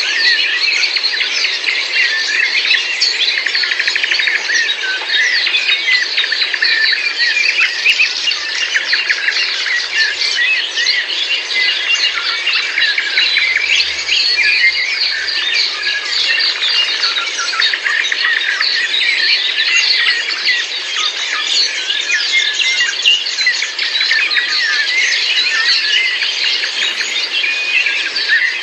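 Many birds chirping and singing at once in a dense, continuous chorus of overlapping short calls and trills.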